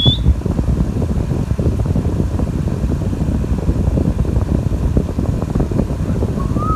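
Steady low rumbling noise throughout, with a short rising whistle from an Indian ringneck parrot at the very start and a fainter short rising whistle near the end.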